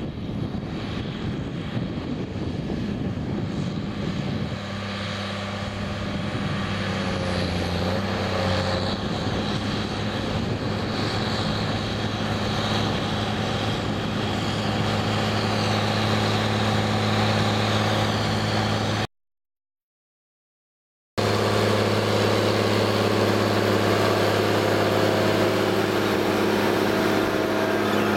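Case IH Steiger 500 tractor's diesel engine working under steady load as it pulls a Tiger-Mate field cultivator through the soil, a steady drone that grows louder as the tractor approaches. The sound drops out for about two seconds past the middle, then the drone returns steady.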